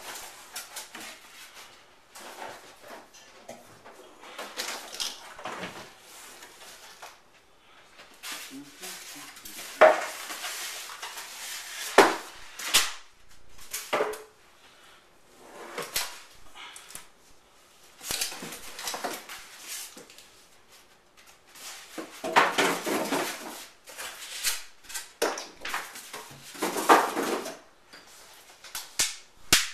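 Packaging being handled while unboxing a new iMac: irregular rustling and crinkling, with a few sharp knocks.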